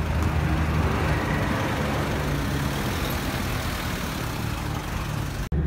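Engine of a double-cab pickup truck idling steadily, with an even hiss over it.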